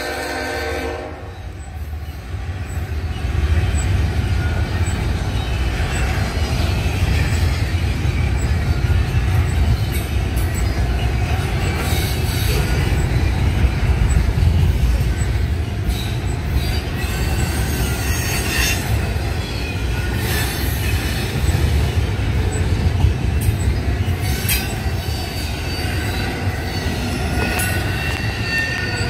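Union Pacific freight locomotive's air horn cutting off about a second in, then the steady low rumble of a double-stack intermodal container train rolling past close by, with scattered clanks and high wheel squeals.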